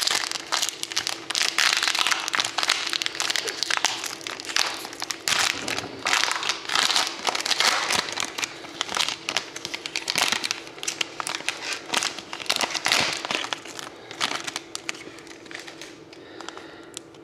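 Foil trading-card pack wrapper crinkling as it is torn open and peeled off the cards: irregular crackling that dies down near the end.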